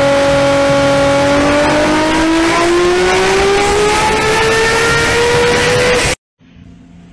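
An engine running loud and steady, then rising in pitch over a few seconds as it speeds up. It cuts off suddenly about six seconds in, leaving a faint low hum.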